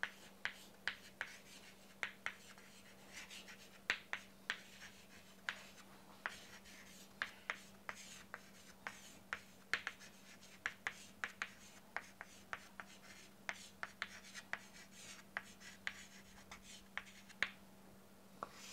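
Chalk tapping and scratching on a chalkboard as words are written in cursive, a quick irregular run of sharp taps. A faint steady low hum lies underneath.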